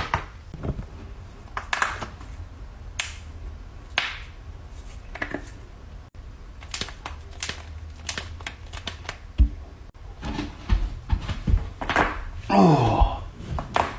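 Joints cracking: a series of sharp, scattered pops and clicks, thicker in the second half. Near the end a person lets out a low, falling groan.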